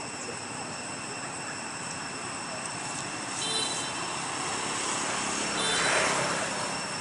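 Outdoor ambience: a steady noisy background with several high-pitched steady tones, and a broad rush of noise that swells and fades about six seconds in.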